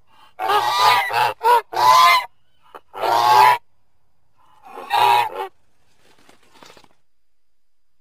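Goose honking: a quick run of about four honks, then two single honks a second or two apart.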